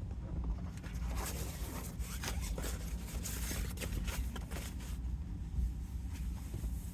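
Short, quick rustling and scraping sounds of things being handled, clustered in the middle, over a steady low rumble.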